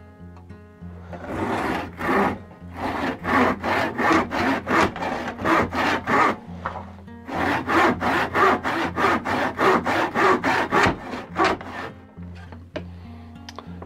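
Box saw, a small spined backsaw, cutting across a clamped wooden board in steady back-and-forth strokes, about two to three a second. There is a brief pause about seven seconds in, and the strokes trail off near the end.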